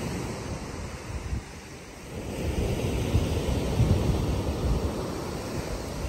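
Sea surf washing onto a pebble beach, with wind buffeting the microphone; the surf swells louder about two seconds in.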